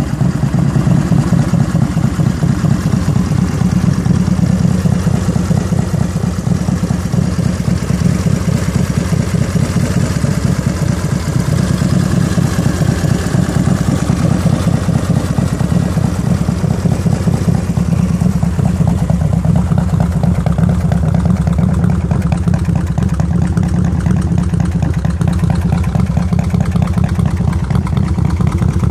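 S&S 131 cubic-inch stroker V-twin with S&S 625 cams in a 2003 Harley-Davidson Road Glide, idling steadily with a fast, even pulse and no revving.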